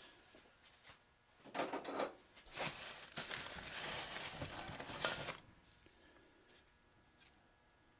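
Hands rummaging in a box of old tools: rustling and scraping of packing material and tools being shifted, a short burst about a second and a half in, then a longer stretch of rustling from under 3 seconds to about 5 seconds in.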